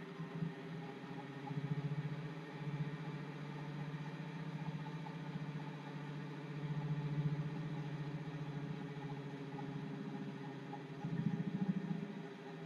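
Front-loading washing machine running its wash cycle: a steady motor hum that swells louder three times, about every four to five seconds, as the drum turns.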